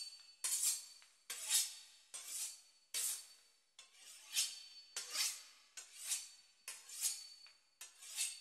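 A knife sawing through the crisp pastry crust of a beef Wellington, a rasping stroke repeated about once every 0.8 seconds.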